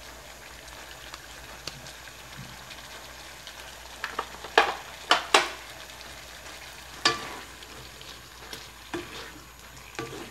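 Adobo simmering in a wok with a steady, quiet sizzle. Several sharp clicks and knocks come about four to seven seconds in. Near the end a wooden spatula starts stirring against the wok.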